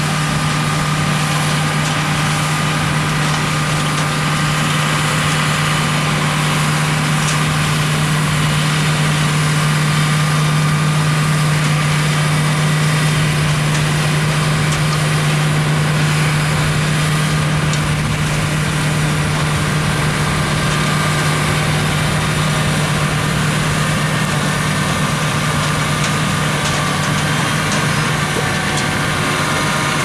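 A John Deere 8245R tractor's six-cylinder diesel engine running steadily with a constant low hum as it pulls a Grimme Evo 290 twin-row potato harvester, the harvester's machinery running along with it.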